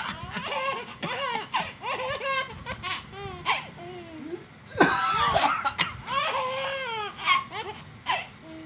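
A small child laughing in repeated fits at a man's coughing, with a few sudden sharp coughs in between, the loudest about five seconds in.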